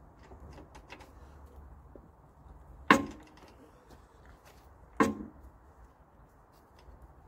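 Two sharp metal clunks about two seconds apart, each with a short ring, with light clicks of handling before them. They come from working the Bonser auto truck's refitted gearbox while shifting it into neutral.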